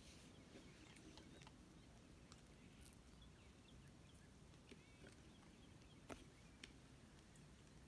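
Near silence: faint outdoor ambience with a few soft clicks and some faint high chirps.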